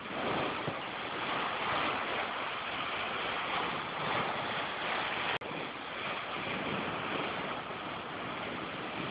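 Steady rushing noise, broken by a brief dropout with a click about five seconds in.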